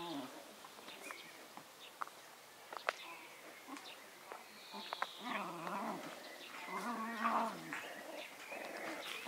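Seven-week-old Jack Russell terrier puppies play-growling as they wrestle: a short growl at the start, then two longer, rougher bouts in the second half.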